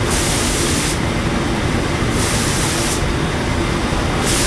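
Automatic pneumatic spray guns on a cookware inner-coating line spray coating into the passing pots. They hiss in bursts of about a second, three times, roughly every two seconds, over the steady low rumble of the line's machinery.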